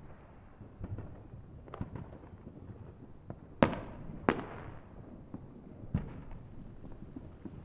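Fireworks going off in scattered bangs, each trailing off in an echo. The two loudest come about three and a half and four seconds in, with quieter pops before and after.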